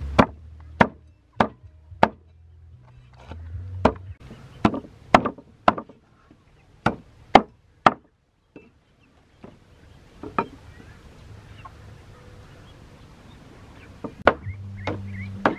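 Heavy cleaver chopping through whole fish onto a wooden block: sharp chops in quick runs of three or four, about half a second apart, with a few more spaced chops later.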